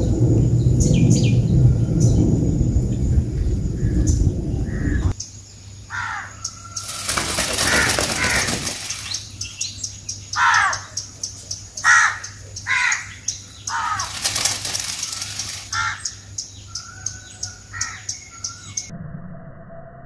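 Outdoor recording that opens with a loud low rumble, which cuts off about five seconds in. After that, birds chirp in short, falling calls repeated every second or so over a steady high whine, with two longer rustling bursts.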